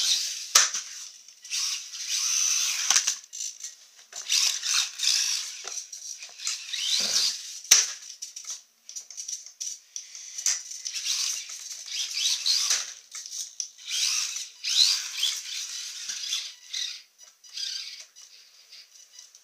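Losi Micro Desert Truck's small brushed electric motor and gears whining in short throttle bursts, the pitch rising and falling. A few sharp knocks come as the little truck hits the wooden ramp and tile floor, the loudest about eight seconds in.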